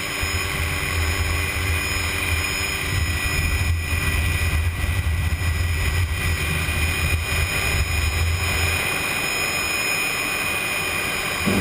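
Helicopter in flight heard from on board: a steady engine and rotor drone with a constant high whine. The low drone drops away about nine seconds in while the whine carries on.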